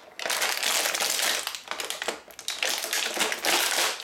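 Clear plastic blister packaging crinkling and crackling as it is handled. The sound is near-continuous, with a brief lull just after the halfway point.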